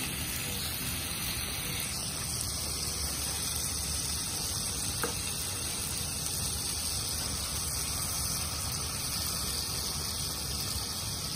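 Diced chicken breast and pancetta sizzling in a hot frying pan, a steady hiss, with a single light click about five seconds in.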